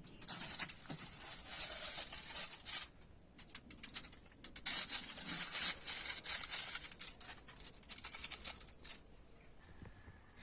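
Crisp crackling and scraping in two long stretches of many quick clicks, the second a little after the first ends: close-up kitchen handling noise.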